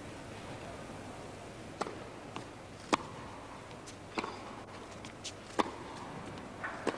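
Tennis ball struck by rackets and bouncing on an indoor court during a rally: a string of sharp pops, the loudest about three and five and a half seconds in, over the low hush of the arena.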